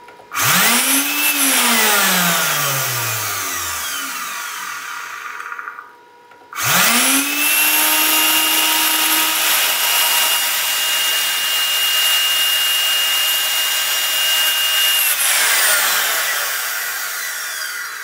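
Vacuum-cleaner universal motor running on ceramic ball bearings. It spins up to a high whine about a second in, then winds down in falling pitch over several seconds. It is started again, holds a steady high whine for about eight seconds, and winds down again near the end once the power is cut.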